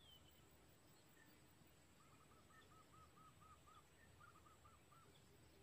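Near silence with a faint bird calling: a quick run of about nine short repeated notes, then three more a moment later.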